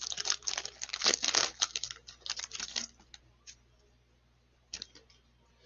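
Plastic trading-card pack wrapper being torn open and crinkled by hand, dense crinkling for about three seconds, then a few faint rustles and clicks as the cards are pulled out.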